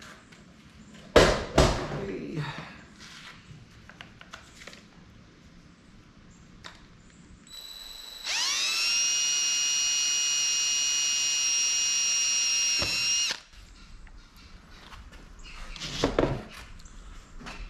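DeWalt cordless drill spinning up and running steadily for about five seconds, a high whine, as a small bit drills into an aluminum carburetor part for a baffle rivet. Before it come clunks and clicks of tools being handled, and more clatter follows after it stops.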